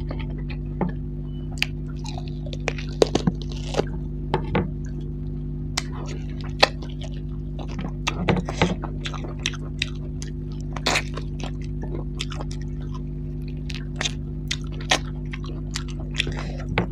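Close-miked mukbang chewing of buffalo curry and rice, with irregular wet mouth smacks and clicks. A steady low hum runs underneath.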